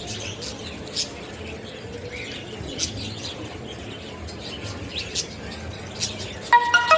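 Short, scattered bird chirps spaced a second or two apart over a low steady background. A few bright musical notes come in near the end.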